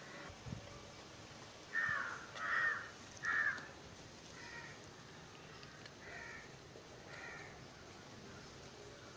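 Crows cawing: three loud, harsh caws in quick succession about two to three and a half seconds in, followed by three fainter caws spaced about a second apart.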